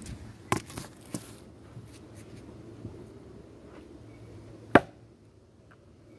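Sharp knocks and clicks: three in quick succession in the first second or so, a few faint ticks after, and one much louder knock near the end.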